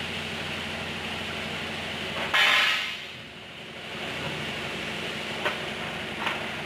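Punch machine running with a steady mechanical hum. A loud hiss lasting about half a second comes a little over two seconds in, and the hum drops away with it. A few sharp clicks follow later.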